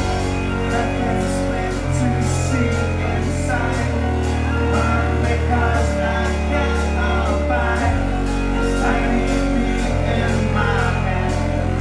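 Live band music: a woman singing over deep sustained bass notes that change every few seconds, with a steady ticking beat on top.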